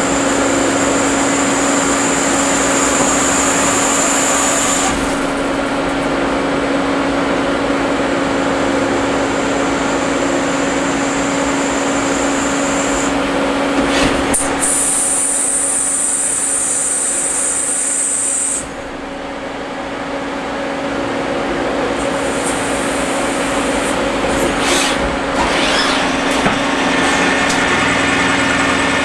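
Citizen A32 VII Swiss-type CNC lathe running a turning cycle: a steady machine hum under the cutting, with a high thin whine that stops about five seconds in. A bright high hiss comes in for a few seconds around the middle, and a few sharp clicks come near the middle and again later.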